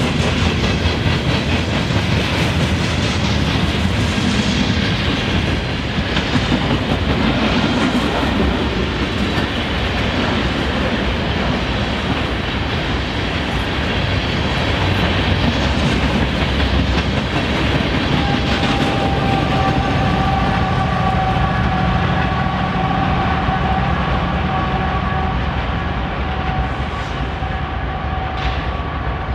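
Freight train rolling past, its wheels clattering over the rails with a steady heavy rumble. About two-thirds of the way through, a steady high tone comes in and holds.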